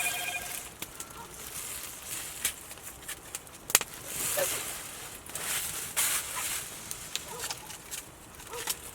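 Campfire crackling with scattered sharp pops, along with rustling and handling noises in uneven swells as a potato is set in to cook.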